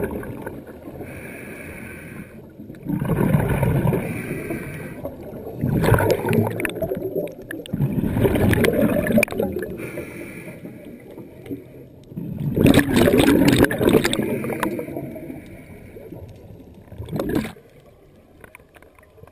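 Scuba diver breathing through a regulator underwater: quieter hissing inhales alternate with loud bubbling exhales, a breath every few seconds.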